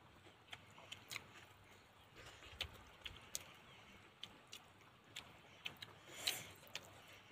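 Faint eating sounds from people eating with their hands: scattered mouth clicks and smacks at irregular intervals, the loudest a little over six seconds in.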